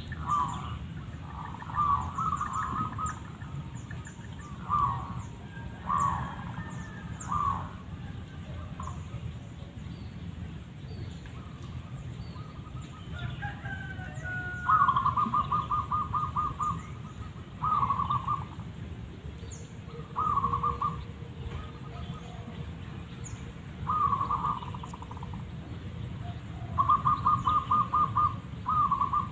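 Zebra doves calling: short bursts of rapid, stuttering cooing notes, each about a second long, repeated every couple of seconds.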